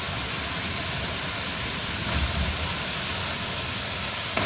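Waterfall's steady rushing roar of falling water.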